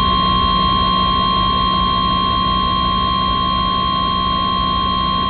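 NOAA Weather Radio 1050 Hz warning alarm tone: one steady, unbroken high tone over radio hiss and a low hum. It signals that a weather warning message follows.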